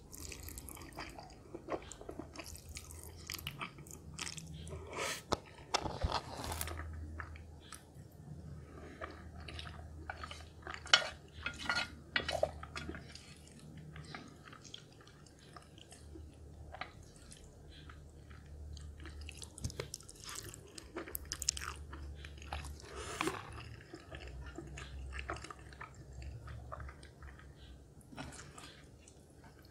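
Close-miked chewing of a mouthful of instant noodles and sausage, wet and irregular, with occasional light clicks of chopsticks and a serving ladle against a glass dish.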